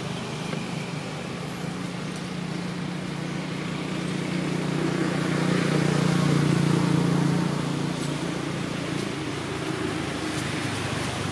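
A motor vehicle's engine hum over steady road-traffic noise, swelling and easing off as it passes, loudest about six to seven seconds in.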